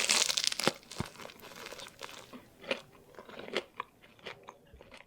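Crunching and chewing on a fried Cheetos-coated cheese corn dog: a loud crunchy bite at first, then a run of smaller crackling chews that grow quieter.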